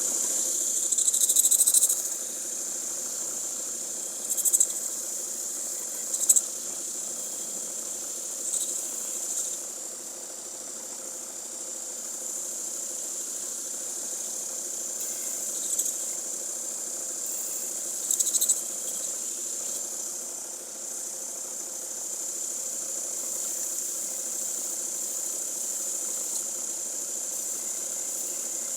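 Tormek sharpening machine running, with a knife blade grinding against the wheel: a steady high hiss over a motor hum, with brief louder surges every few seconds.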